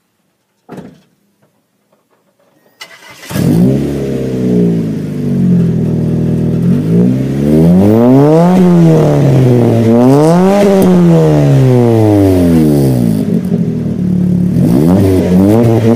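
1998 Mitsubishi Eclipse GS's 2.0-litre four-cylinder engine running through a stainless header-back exhaust with the silencer insert removed. It comes in loudly about three seconds in, idles steadily, is revved up and back down twice, then idles and starts to rise again near the end.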